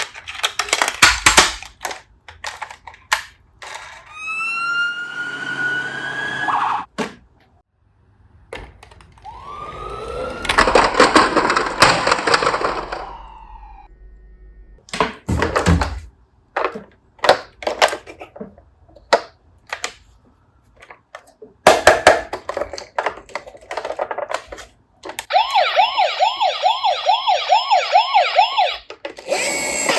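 Toy ambulance being handled: plastic clicks, two rising whirrs, then its electronic siren wailing quickly up and down near the end.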